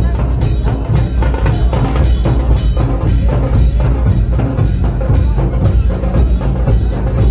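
A group of large hand-carried drums beaten loudly in a steady, driving rhythm, with sharp strokes about three a second over a heavy, deep beat.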